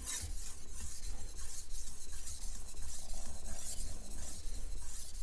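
Steel knife blade rasping across a wet whetstone in a quick series of light strokes. The strokes push over and straighten the burr after sharpening.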